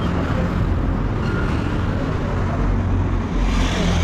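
Road traffic noise: engines running with a steady low hum, and a vehicle passing near the end.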